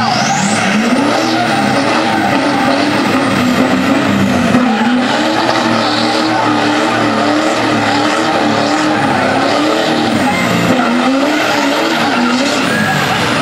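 A Chevrolet Silverado dually pickup and a semi truck pulling against each other at full throttle. Their diesel engines are running hard at high revs, the pitch rising and falling over and over, while the dually's rear tires spin and skid on the asphalt.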